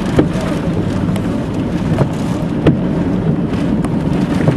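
Heavy wind-driven rain from a rain-wrapped tornado beating on a moving vehicle, heard from inside the cabin along with the vehicle's road noise. It is a steady low rumble with four sharp knocks.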